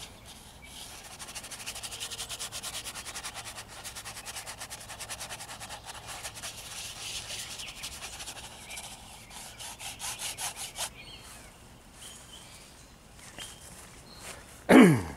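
Paintbrush scrubbing black oil paint onto a textured canvas in rapid, rhythmic back-and-forth strokes, which stop about eleven seconds in. Near the end there is one brief, loud sound that slides steeply down in pitch.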